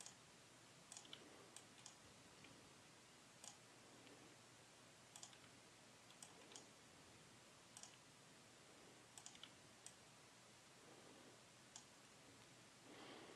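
Faint computer mouse clicks, scattered singly and in quick pairs every second or so, over near-silent room tone.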